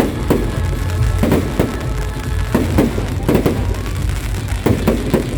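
Fireworks going off in quick, irregular succession, a string of sharp pops and bangs over a steady low rumble, with music playing.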